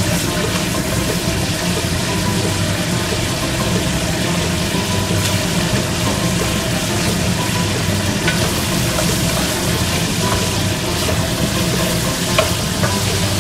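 Chicken leg pieces and ginger slices sizzling in sesame oil, stir-fried with a wooden spatula that knocks against the pan a few times, over a steady low hum. The chicken has nearly all turned white.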